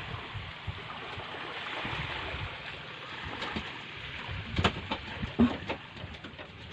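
Steady wash of small waves on the shore, with a few sharp knocks in the last couple of seconds from hands working on a small boat diesel engine that is not running.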